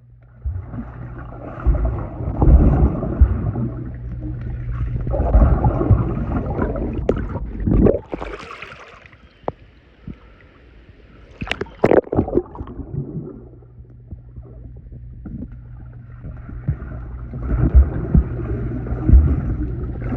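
Pool water sloshing and gurgling in irregular surges as someone moves through it, with a few sharp knocks and splashes in the middle.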